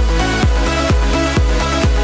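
Electronic dance music with a steady kick drum beating about twice a second.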